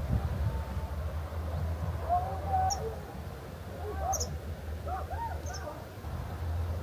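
Distant people shouting and screaming across the valley in short, rising-and-falling calls about two, four and five seconds in, with a few brief high bird chirps, over a low steady rumble.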